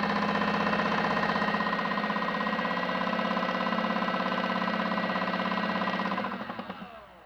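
Small electric motor of a modified Miele W1 toy washing machine running its spin with a steady whine and a fast pulsing, then winding down with falling pitch about six seconds in until it stops.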